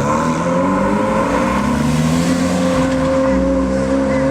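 A high-performance car engine running loud at high revs, its pitch holding fairly steady with a few small shifts.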